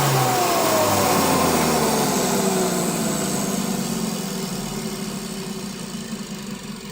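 Rexair Model B vacuum cleaner motor spinning down, its whine falling steadily in pitch over the first few seconds as the rushing air sound slowly fades.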